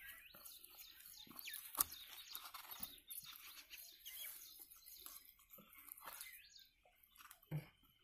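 Faint scraping and crackling as soft flesh is scooped out of a tender coconut with a piece of its husk, with a sharp click about two seconds in and a dull knock near the end. Birds chirp faintly in the background.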